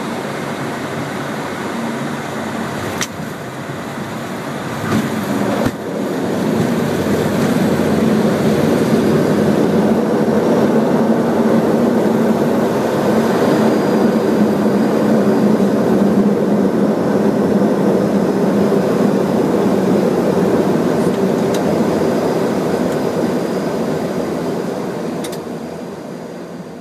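Airliner cockpit noise during the landing rollout: a steady noise of engines and rushing air that swells about six seconds in, holds loud, and dies away near the end. A few faint clicks.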